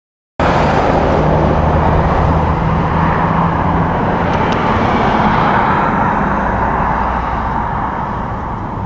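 Loud road noise from a motor vehicle close by, cutting in suddenly with a steady engine hum underneath and slowly fading over the last few seconds.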